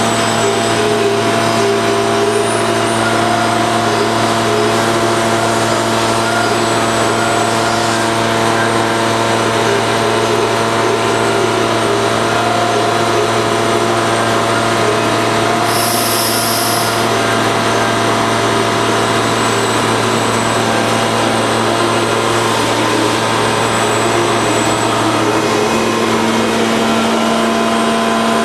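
Steady running noise of a CNC lathe and its robot loader: a constant low hum with several steady tones above it. A short high hiss comes about halfway through, and the hum changes pitch near the end as the machine changes its running state.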